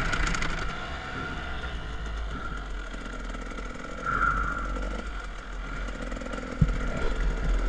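Motocross dirt bike engine running and revving up and down as it is ridden over a dirt track, heard from on board with heavy wind rumble on the microphone. There is a sharp low thump about six and a half seconds in.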